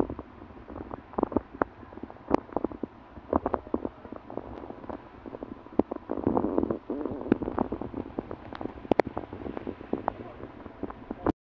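Footsteps crunching on dry leaf litter and twigs, irregular crackles and snaps, over a low rumble of wind on the microphone. The sound cuts off suddenly near the end.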